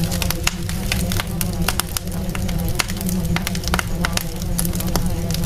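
Dense, irregular crackling and popping over a steady low rumble, as in a crackling-fire sleep ambience track.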